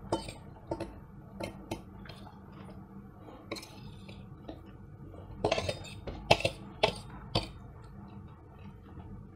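A metal spoon clinking and scraping against a stainless steel plate: a few single clinks in the first two seconds, then a quicker run of louder clinks from about five and a half to seven and a half seconds in.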